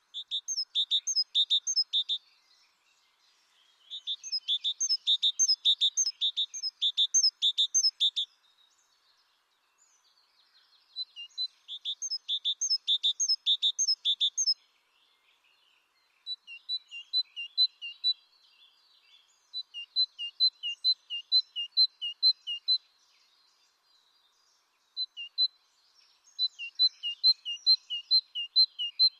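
A small bird singing: phrases of rapid, high, evenly repeated chirps, about four a second, each phrase lasting a few seconds with short pauses between. In the later phrases the notes alternate between two pitches.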